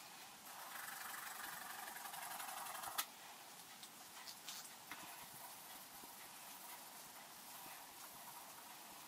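Graphite pencil scratching across drawing paper, a soft hiss for a couple of seconds, followed by a sharp tap about three seconds in and a few faint ticks.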